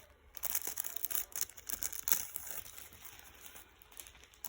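Packaging crinkling and tearing as a small item is unwrapped by hand, a dense run of crackles that thins out after about three seconds.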